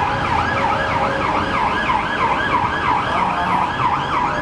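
Emergency vehicle siren in fast yelp mode: a rapid rising-and-falling wail repeating about three times a second, over street traffic.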